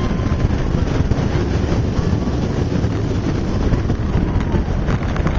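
Roller coaster ride heard from a rider's seat: wind buffeting the microphone over the steady rumble of the coaster train running along its track.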